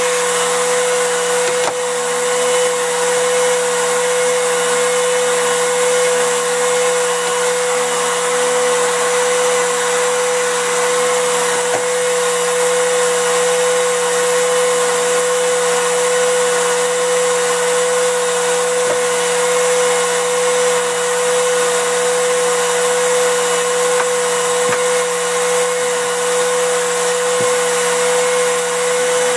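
Electric heat gun running steadily, its fan blowing hot air with a constant hum and one strong steady tone. A few faint knocks from handling the phone lie under it.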